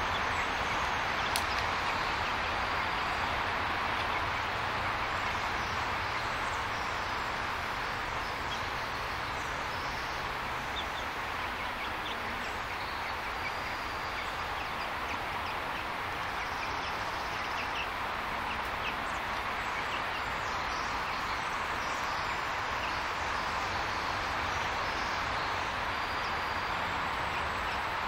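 Steady background hiss with faint, short, high peeps from young chickens scattered through it.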